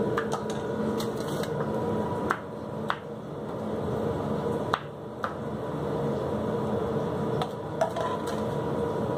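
Steady hum of kitchen equipment with a faint held tone, broken by several sharp clicks and knocks of utensils and a plate on a steel counter.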